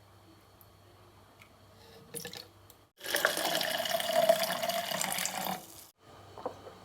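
Running water, heard as a loud, even rush for about two and a half seconds in the middle, starting and stopping abruptly. A few faint clicks come just before it.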